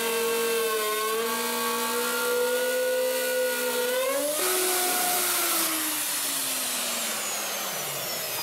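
Electric plunge router cutting into the timber of a windmill windshaft, running with a steady whine that dips briefly about a second in. About four seconds in its sound changes abruptly and the pitch then falls steadily, like the motor winding down.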